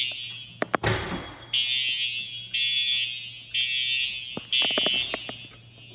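School fire alarm horn sounding for a fire drill: loud high-pitched blasts repeating about once a second, the last ending about five seconds in. A brief rushing noise comes about a second in, with a few clicks.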